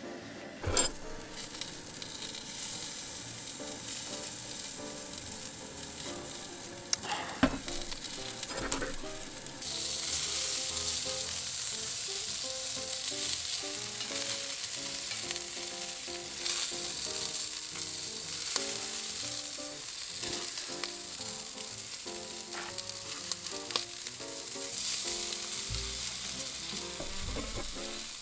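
Food sizzling and frying on a hot iron griddle plate, getting clearly louder about ten seconds in. Before that come a few sharp knocks.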